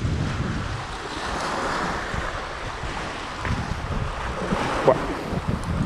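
Wind buffeting the microphone over small waves lapping against the shore, with a short squeak about five seconds in.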